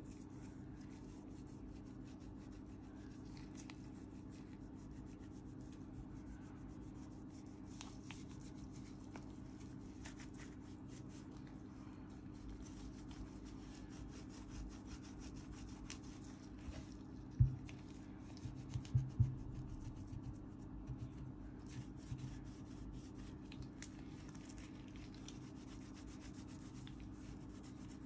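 Hands rubbing and scratching at a phone during repair work, a fine, continuous scratchy sound over a steady low hum. A little past the middle come a few short dull knocks, one on its own and then a quick cluster, the loudest sounds here.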